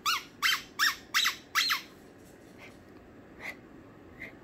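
Squeaker inside a plush hamburger dog toy squeaking five times in quick succession, about three a second, each squeak rising and falling in pitch; a few faint squeaks follow.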